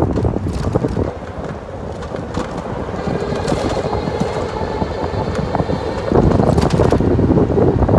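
Wind buffeting the microphone while moving along a street, a loud low rumble that eases about a second in and grows stronger again after about six seconds.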